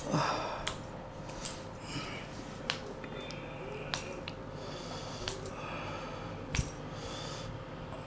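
Light sharp clicks and metallic clinks, one every second or so, from a woman's bangles as a chiropractor manipulates her wrist, with faint breathing over a thin steady hum.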